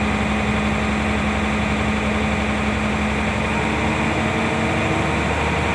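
Hino Lohan 260 Ti truck's diesel engine running steadily at raised revs, heard from inside the cab, while its air compressor builds brake-system air pressure. Its pitch shifts slightly about three and a half seconds in.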